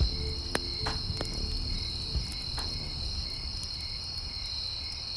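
Crickets chirring steadily at night over a wood campfire, which gives a few sharp crackling pops.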